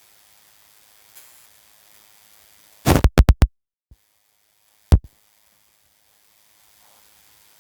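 A quick run of four or five sharp knocks about three seconds in, then one more knock about two seconds later.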